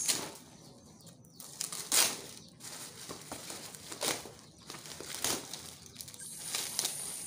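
Cardboard and plastic packaging being torn and crumpled by hand: several short bursts of rustling and crinkling, the loudest about two seconds in.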